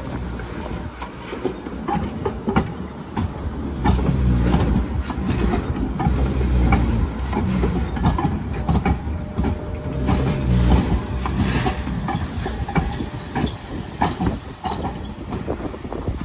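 Sheffield Supertram tram passing close by over pointwork and crossings: a low rumble with many sharp clacks as the wheels run over the rail gaps. It grows louder about four seconds in and eases off after about twelve seconds.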